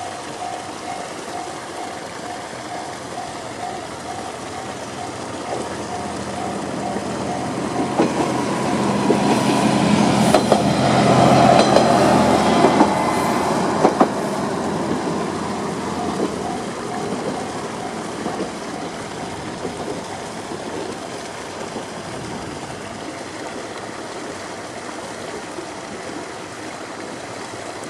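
Japanese level-crossing electronic alarm (JR standard tone) ringing in a steady run of repeated pulses while a YR-880 diesel railcar passes over the crossing. Its engine and wheels swell up and are loudest about eleven to thirteen seconds in, with a few sharp wheel clacks over the rail joints near the peak. The train then fades away while the alarm keeps ringing.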